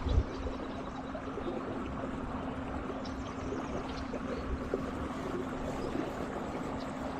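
Water lapping and trickling against a small boat's hull, over a steady low hum. There is a brief low thump just after the start.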